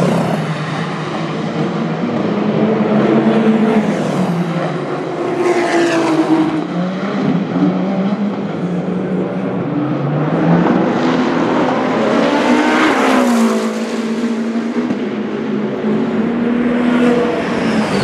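Endurance race cars passing at speed one after another, engine notes rising and falling as each goes by. There are several fly-bys: one at the start, one about six seconds in, a louder one with a sweeping pitch change around two-thirds through, and another at the end.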